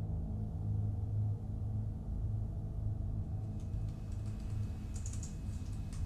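A low, pulsing drone runs throughout. From about halfway through, laptop keys are typed in a light run of clicks.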